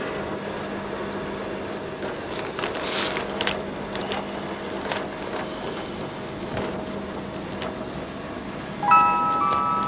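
Steady low hum and hiss with a few faint knocks about three seconds in. About a second before the end, soft music with a bell-like melody begins.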